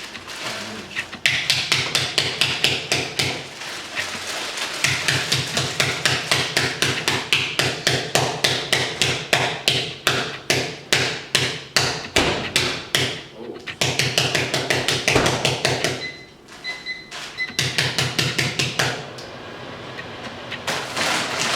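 Takis chips being crushed by repeated pounding, about four to five blows a second in several runs with short pauses.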